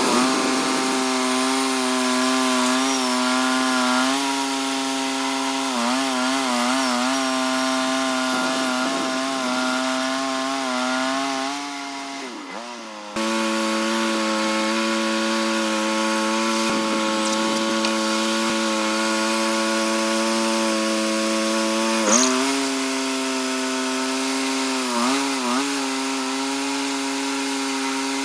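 Portable band sawmill's engine running at a steady speed while sawing a locust log, its pitch wavering briefly several times as the cut loads it.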